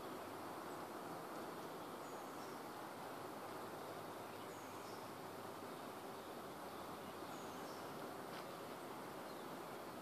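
Quiet outdoor ambience in woods: a steady hiss with a few faint, short high chirps from small birds.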